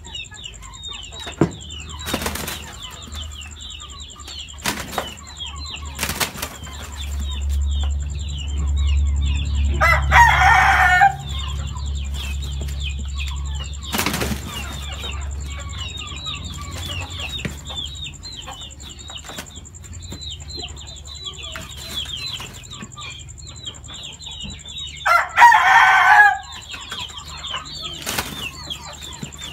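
Two gamecocks fighting: wings flapping and bodies striking, with occasional sharp knocks. A rooster crows twice, about ten seconds in and again near the end. Faint high chirping runs throughout.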